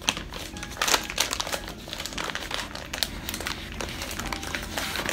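Crinkling of a food wrapper being handled and opened from a convenience-store cheeseburger, an irregular run of crackles.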